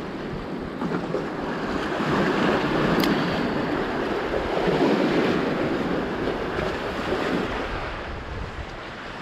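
Sea waves washing and surging among concrete tetrapod breakwater blocks, with wind buffeting the microphone; the surge swells louder from about two seconds in and eases off after about seven. A single sharp click about three seconds in.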